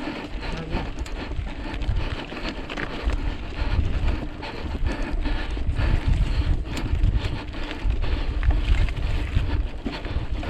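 Wind buffeting the microphone in gusts while riding a mountain bike over a rocky track, with frequent short rattles and knocks from the bike.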